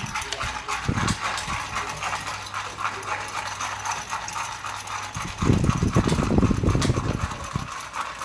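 Plastic xiangqi pieces clicking on a wooden board and a digital chess clock's buttons being pressed. A louder, rough rattling burst of about two seconds comes about five seconds in.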